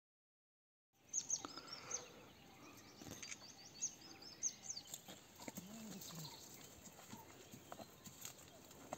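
After about a second of silence, faint outdoor ambience with small birds chirping in quick, high twitters, a few soft clicks, and a short low call about halfway through.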